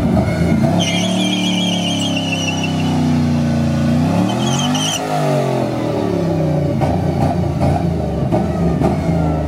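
Muscle-car engines revving hard. The pitch climbs to a peak about halfway through and then falls away, with short high-pitched warbling squeals about a second in and again near the middle.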